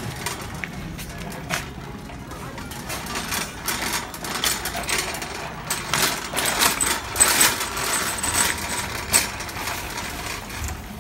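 Wire shopping cart being pushed, its wheels rolling and the metal basket rattling, clattering loudest about halfway through as it crosses the doorway threshold onto rough concrete.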